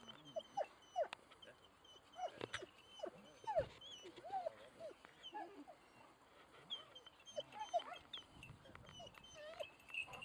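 Hunting dogs on leads whining and yipping in short, rising-and-falling cries, many in quick succession.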